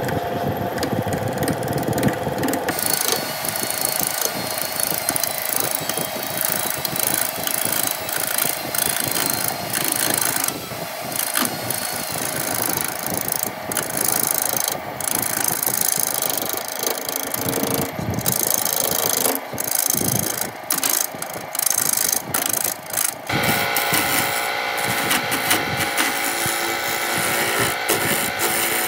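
Wood lathe running while a hand-held chisel cuts a spinning wooden blank: a steady motor whine under the scraping noise of the cut, with frequent brief drops as the tool eases off. The hum shifts in pitch a little after three-quarters of the way through.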